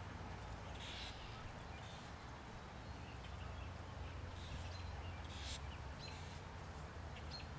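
Faint outdoor ambience: a steady low rumble with a few short, high bird calls scattered through.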